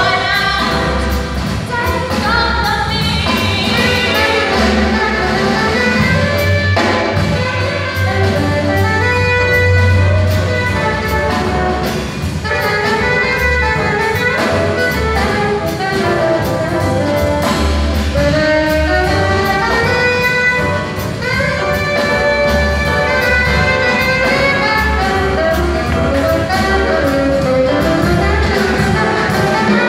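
Live jazz band: two saxophones playing the melody over a drum kit in an instrumental break.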